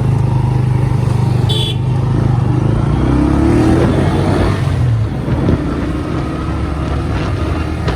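Motor vehicle traffic running close by as a loud, steady low rumble that eases off after about five seconds, with a brief high beep about a second and a half in.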